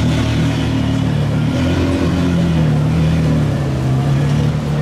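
Gemballa Mirage GT's V10 engine idling at low revs, its note stepping up slightly about two seconds in and easing back near the end.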